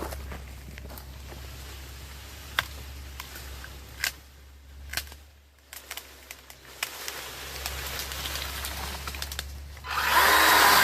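Scattered clicks and knocks of handling, then about ten seconds in a Makita 18V cordless chainsaw's electric motor starts abruptly and runs at speed with a steady high whine.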